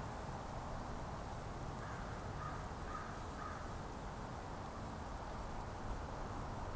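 Steady background hiss of outdoor forest ambience, with three faint short bird calls about two to three and a half seconds in.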